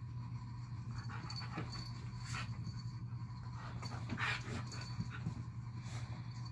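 Husky breathing and sniffing in a few short noisy huffs while playing, over a steady low hum.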